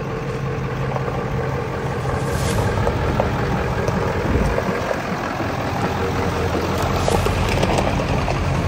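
Ford 7.3 Powerstroke turbodiesel V8 running at low revs with a steady low-pitched rumble as the truck creeps forward, on its first run with a newly fitted KC38R turbocharger.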